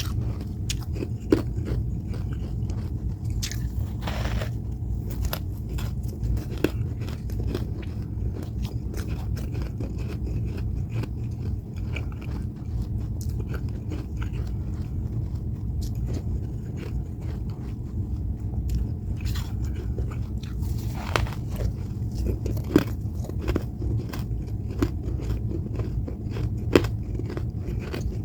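Close-up chewing and crunching of freezer frost: many irregular crisp crunches and bites, over a steady low hum.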